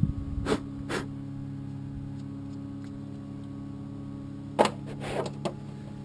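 New Bosch QuietCast brake pads, fitted with their metal clips, clicking as they are handled: two sharp clicks about half a second apart, then a short clatter of clicks near the end as a pad is set into the front caliper bracket. A steady low hum runs underneath.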